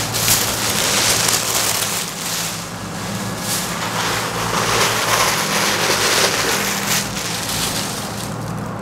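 Rustling and brushing of a cloth turban handled close to the microphone: a loud, uneven rustle that swells and fades, over a steady low hum.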